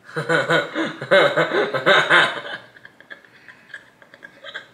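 People laughing heartily for about two and a half seconds, then trailing off into a few quieter chuckles.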